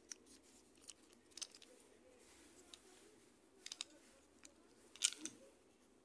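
A few faint, scattered clicks of hard plastic parts being handled: a Whirlpool washer's agitator dog assembly, with four new agitator dogs, turned over in the hands. The loudest click comes about five seconds in.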